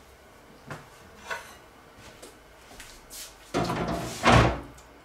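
Kitchen clean-up at the sink: a few light knocks, then, about three and a half seconds in, a louder burst of clattering and rushing lasting a little over a second as dishes are handled in the sink.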